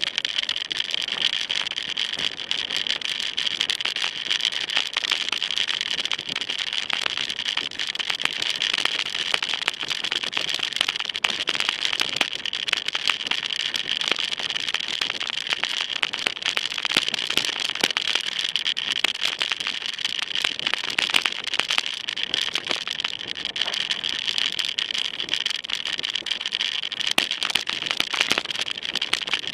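Mountain bike clattering and rattling over a rough dirt and gravel trail, a dense run of small knocks from the frame and tyres on stones, over a steady high hiss.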